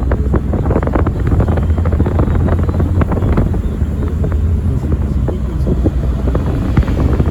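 Heavy wind buffeting the microphone: a steady low rumble with many crackling gusts.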